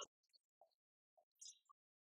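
Near silence with a few faint, short clicks and taps, the most noticeable about one and a half seconds in.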